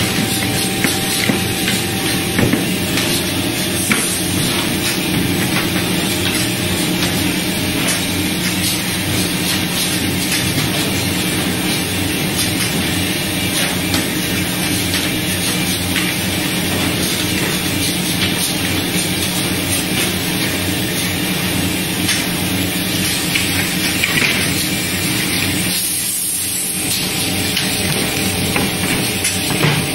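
A plywood veneer paving line and its electric motors running steadily in a factory, a constant hum under a dense hiss. Frequent light clacks come through as wooden veneer strips are handled on the conveyor.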